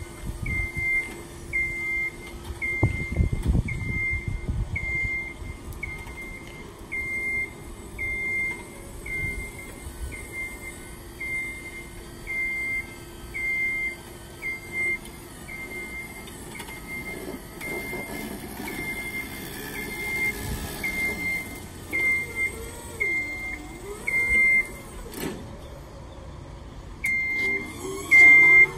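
Motion alarm of a battery-powered Genie GR-20 Runabout vertical mast lift beeping as it drives, one high single-tone beep about every 0.7 s, louder near the end as the lift comes close. A faint steady hum runs underneath.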